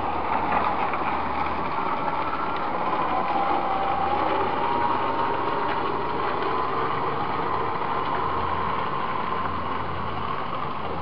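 Battery-electric garden tractor driving on pavement: a steady electric motor whine that dips slightly in pitch and comes back up, over an even hiss of running noise.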